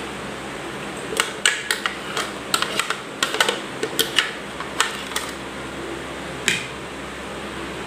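Plastic mixer-grinder jar tipped against a glass bowl while its cake batter is poured out: a quick, irregular run of sharp clicks and taps from about a second in to about five seconds, then one more near the end, over a steady background hiss.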